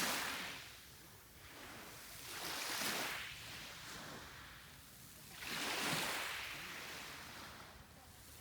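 Sea waves breaking on the shore, three in turn about three seconds apart, each a rush of surf that swells and then fades away.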